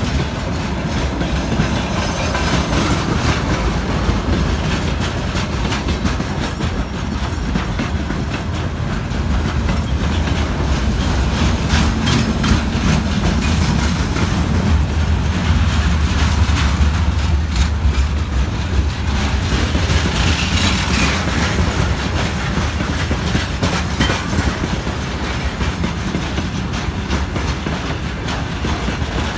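Freight train wagons rolling past, their wheels clicking steadily over rail joints above a continuous low rumble that swells in the middle.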